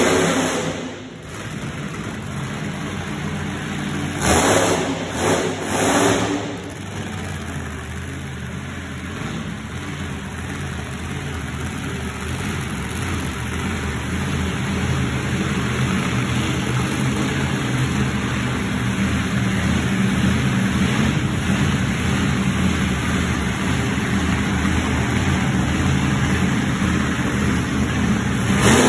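Monster truck engines revving and running: loud revs at the start and three more between about four and six and a half seconds in, then a steady engine drone that slowly grows louder.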